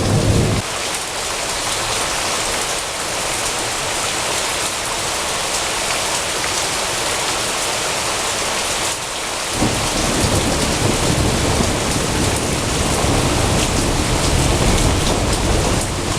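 Steady rain during a thunderstorm. A low rumble of thunder dies away about half a second in, and another rumble of thunder begins a little past halfway and rolls on.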